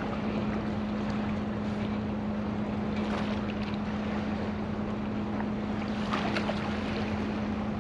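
Boat's bilge pump running with a steady hum over a rushing wash of water, pumping out water that came in while the drain plug was left out.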